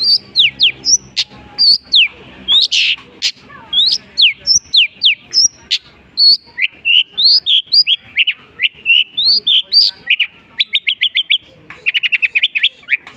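Long-tailed shrike (cendet) singing a fast, varied medley of short whistled notes that sweep up and down, full of calls mimicked from other birds. Near the end it breaks into quick runs of very short notes.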